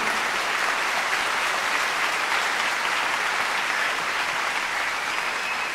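A group of people applauding steadily.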